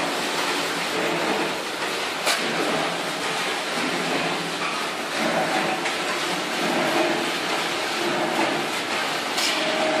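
Electric rotary drum sieve running, soil and grit rattling steadily inside the turning mesh drum as it is shovelled in and sifted. A sharp knock comes about two seconds in and again near the end.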